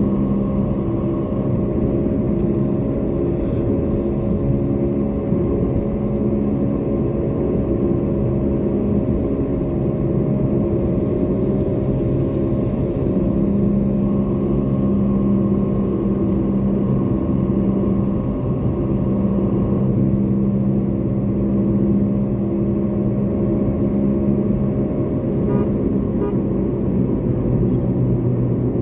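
Toyota Corolla cruising steadily, heard from inside the cabin: a constant low engine and road drone with a faint steady hum.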